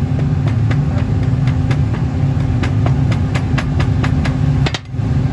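Metal hand rammer pounding moulding sand down into a casting mould: quick, regular knocks, about four a second, that stop near the end. A steady low machine hum runs underneath.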